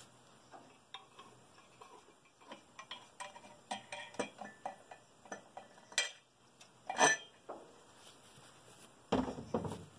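Small metallic clicks, taps and rattles from hands working on a carburetor air cleaner in an engine bay, as the metal air-cleaner lid is taken off. There are two sharper clanks about six and seven seconds in, and a short scraping, rustling noise near the end.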